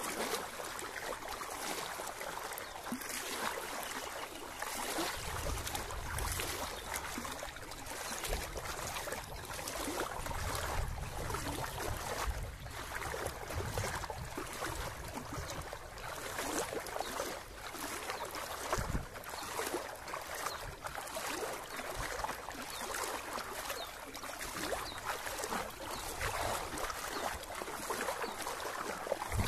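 Floodwater splashing and sloshing in an uneven, continuous stream of small splashes as something moves slowly through it. There are a few low rumbles along the way.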